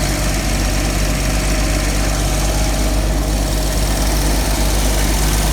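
1985 Toyota FJ60 Land Cruiser's 2F inline-six petrol engine idling steadily and evenly, freshly tuned up with a new distributor cap, rotor, spark plugs and fuel filter, and running smoothly.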